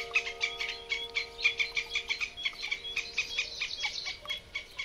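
Fox squirrel chattering: a rapid, even string of short high chirps, several a second. Ringing xylophone-like music notes fade out under it, dying away about four seconds in.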